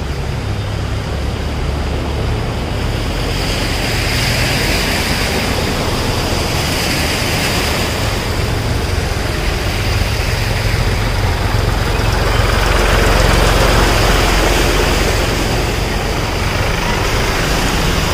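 A Mahindra tractor's diesel engine runs as the tractor drives through floodwater on the road, its tyres churning up a continuous rush of splashing water. Engine and water grow louder about two-thirds of the way through as it passes close. A thin steady high whine sits above.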